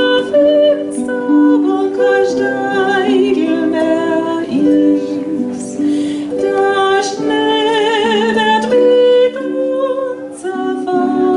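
A woman singing a folk song with a wavering vibrato on her held notes, accompanied by a concert harp.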